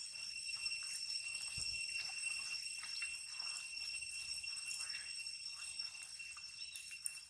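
Steady high-pitched insect drone, one unbroken whine with higher overtones, with faint scattered rustles from macaques moving through the grass.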